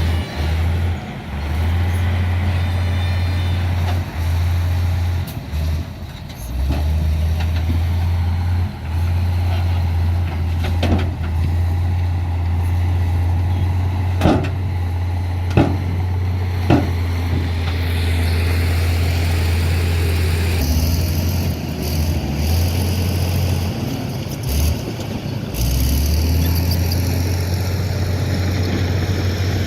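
Heavy diesel truck engines running steadily, with several sharp knocks in the middle.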